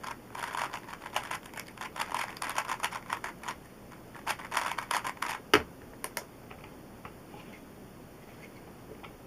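A 3x3 puzzle cube being turned fast in a speedsolve, its plastic layers clicking rapidly in bursts. There is one sharp knock about five and a half seconds in, a few more clicks, then the turning stops.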